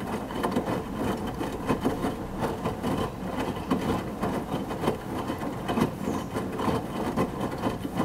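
Midea HealthGuard Smart 13 kg front-loading washing machine turning its drum in the main wash: wet laundry and water slosh and thud in an uneven, busy patter. The sound stops abruptly at the very end as the drum pauses.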